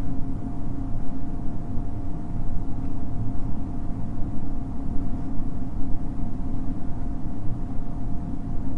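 Steady low rumbling drone with a thin, constant hum tone above it, unchanging throughout.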